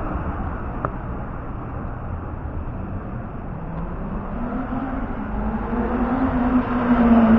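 Street background noise with a motor vehicle's engine approaching, its hum growing louder toward the end.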